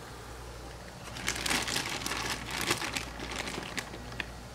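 Plastic bag of carrot chips crinkling as it is handled: an irregular rustle starting about a second in and fading out near the end.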